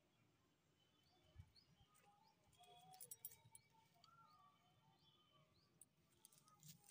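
Faint birds chirping and calling, many short, thin notes and little whistles, with a few soft clicks about three seconds in and near the end.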